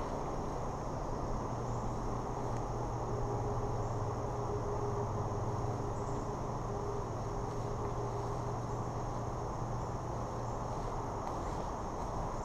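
Steady high-pitched drone of an insect chorus in the woods, unchanging throughout, with a low steady hum underneath.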